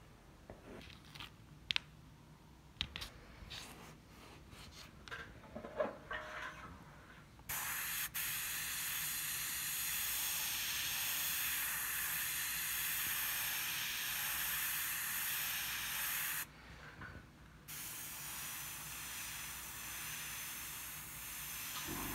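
Light scratches and taps of chalk drawing lines on a wall, then a gravity-feed airbrush spraying paint with a loud steady hiss that cuts off abruptly for about a second and starts again.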